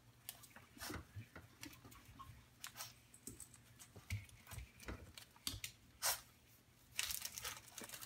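A dog tugging and nosing at a plastic bag, making irregular crinkling and rustling of plastic, with the loudest crinkle about six seconds in and a quick run of crinkles shortly after.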